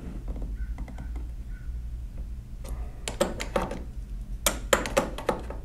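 Small metal parts of a 1920s Monroe mechanical calculator clicking and tapping as they are handled and fitted. A few faint ticks come first, then a quick run of sharp clicks from about three seconds in, over a low steady hum.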